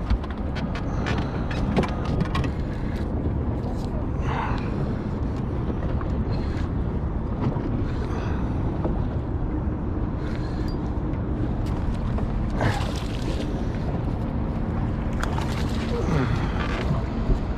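Steady wind buffeting the microphone over water noise against a small fishing boat, with scattered light clicks.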